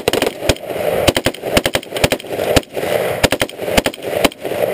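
A rifle fired on full automatic in short bursts of two or three rapid shots, mixed with single shots, several times a second.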